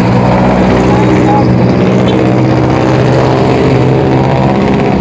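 Motor vehicle engines running close by in city traffic, a steady low drone.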